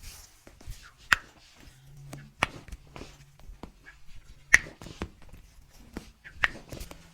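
A series of sharp clicks a second or two apart, the loudest about halfway through, with fainter ticks between them and a faint low hum underneath.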